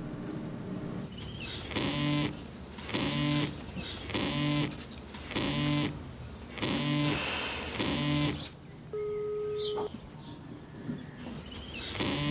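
A mobile phone vibrating on a table: a rattling buzz that repeats about once a second, an incoming call. Around the middle the buzzing pauses and a short steady beep sounds, then the buzzing starts again.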